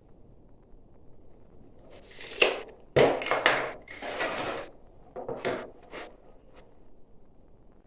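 Irregular scraping and knocking as building materials are handled and fitted: a cluster of short rough strokes with a sharp knock about two to five seconds in, then a few shorter strokes.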